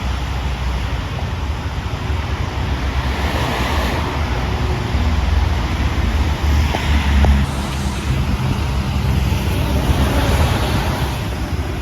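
Road traffic passing, with several vehicles swelling past, over a steady rumble of wind on the microphone.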